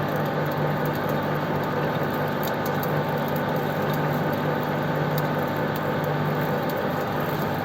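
Metalworking lathe running steadily at slow speed, a constant hum with a faint whine over it, while a die is wound onto the turning work to cut a thread.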